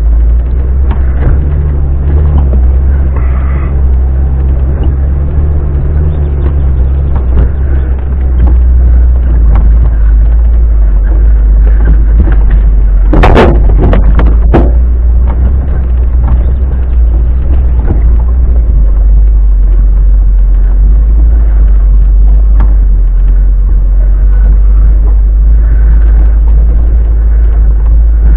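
Off-road vehicle's engine and drivetrain rumbling steadily, heard from inside the cabin as it drives slowly over rough ground, with a brief loud burst about halfway through.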